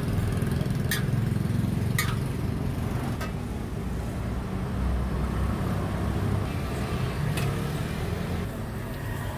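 Metal spatula knocking against a wok a few times while stir-frying, over a steady low rumble.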